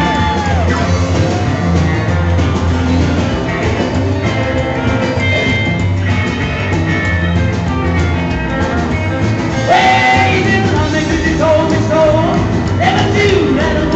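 Live rock and roll band playing: a hollow-body electric guitar plays lead over drums and keyboard, then a man's singing comes back in about ten seconds in.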